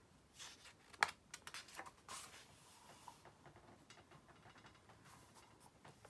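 Workbook pages being turned with a papery rustle, with a sharp tap about a second in and smaller clicks, then a pen faintly scratching as it writes on paper.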